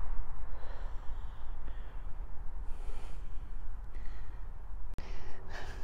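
Wind buffeting the microphone in an uneven low rumble, with a few soft breaths close to the mic and a single tick about five seconds in.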